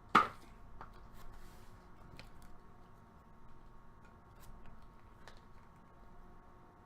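Trading cards and packaging being handled: one sharp click just after the start, then scattered faint ticks and rustles.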